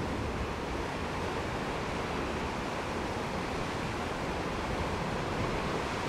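Steady rushing wash of ocean surf, with wind rumbling on the microphone.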